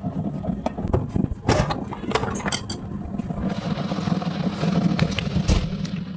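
Samsung top-load washing machine running, with a steady low motor hum and scattered clicks and knocks.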